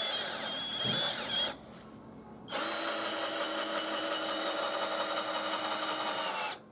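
DEKO 20 V cordless drill-driver with a brushed motor driving a Torx wood screw into timber in low gear: a short run that stops about a second and a half in, then a steady run of about four seconds as the screw sinks flush, stopping just before the end.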